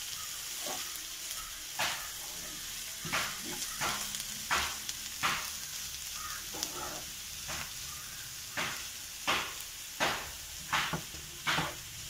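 Wooden spatula stirring shredded chicken and onion masala in a nonstick frying pan: repeated short scrapes and taps against the pan over a steady sizzle, coming faster in the second half.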